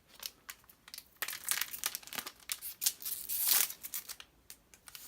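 Crinkling of a trading card booster pack wrapper being handled, a dense run of crackles strongest from about a second in to near the end.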